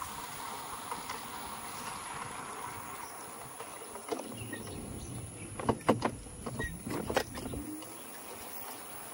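Wind and road noise while riding an electric scooter, steady at first, with a cluster of sharp knocks and rattles between about four and seven seconds in.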